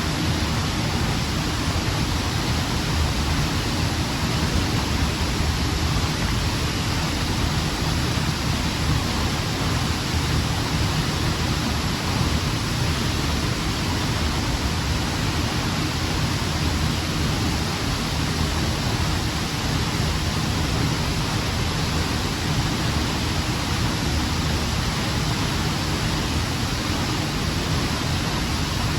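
Large waterfall heard close up: a loud, steady rush of falling water with no breaks.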